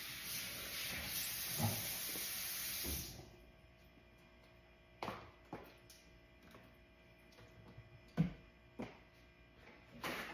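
Kitchen tap running into the sink, shut off abruptly about three seconds in. Then a few separate knocks and clunks from the under-sink cabinet and bottles of cleaner being handled.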